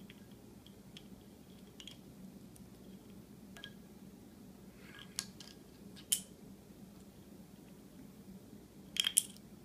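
Scattered sharp clicks and taps of a lovebird's beak and a plastic bottle cap against a glass water bowl and stone countertop. The loudest is a single tap about six seconds in, followed by a quick cluster of clicks near the end.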